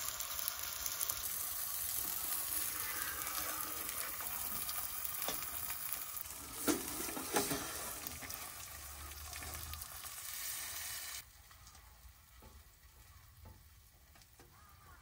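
Meat sizzling and frying on a tabletop wood stove, a steady hiss with two sharp clacks about halfway. The sizzle cuts off suddenly about eleven seconds in, leaving a much quieter stretch with a few faint knocks.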